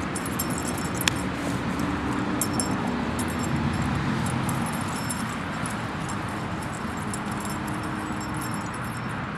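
Steady hum of road traffic, with light metallic jingling that comes and goes and a single sharp click about a second in.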